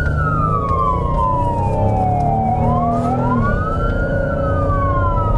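Police car siren on wail, the pitch sliding slowly down, then up and down again, over the patrol car's engine and road rumble: the cruiser is running lights and siren to an urgent call.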